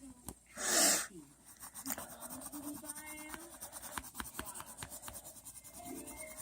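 Coloured pencil or marker strokes scratching on paper, short rapid scratches on a colouring page. A brief loud rush of noise about a second in is the loudest sound.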